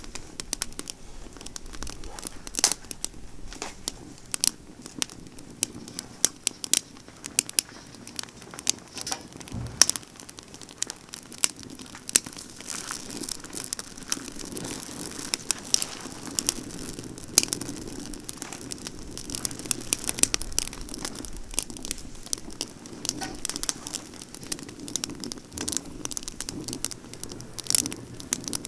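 Pine branches burning in a campfire, crackling with frequent, irregular sharp pops over a steady low rush of flame.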